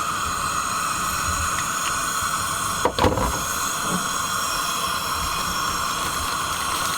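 Steady hiss of breakfast cooking on a camp stove, with a single short knock about three seconds in.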